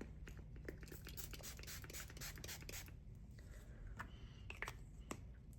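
Handling of a small plastic face-mist spray bottle: a run of quick scratchy clicks and rustling in the first three seconds, then a few separate sharp clicks.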